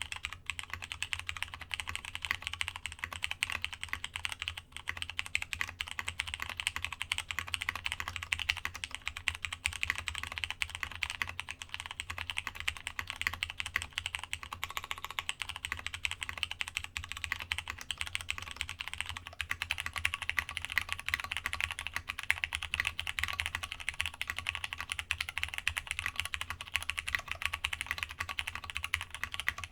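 Continuous fast typing on a Masjewerke K-III custom mechanical keyboard with plateless Cherry MX Brown switches and a polycarbonate internal, at first with DCS keycaps, changing to GMK keycaps about two-thirds of the way through.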